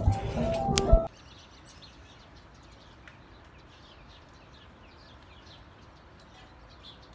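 A doorway clatter that ends in a sharp thump about a second in, then faint bird chirping: many short, quick chirps.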